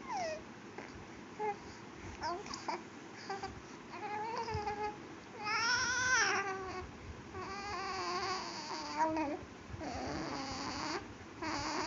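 A baby babbling and cooing: a string of short high vocal sounds that slide up and down in pitch, with the loudest about halfway through.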